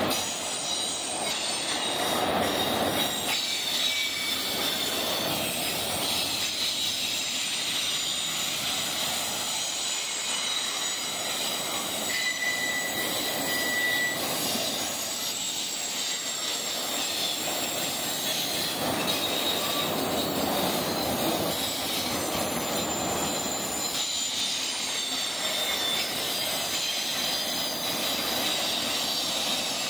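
Autorack cars of a long freight train rolling steadily past on the rails. Thin high squeals from the wheels come and go over the rolling noise.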